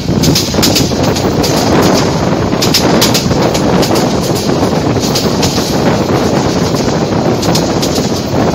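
Passenger train running along the track, heard through an open carriage window: a steady rumble of wheels on rail with occasional clacks.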